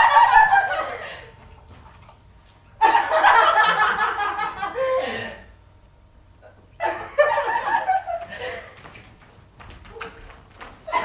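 People laughing in three bursts of a few seconds each, with quieter gaps between.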